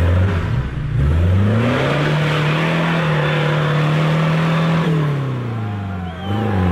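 Off-road 4x4 SUV engine revving hard under load as it claws out of a deep mud rut, pouring smoke. The revs climb about a second in, hold high for several seconds, drop away near the fifth second, then climb again at the end.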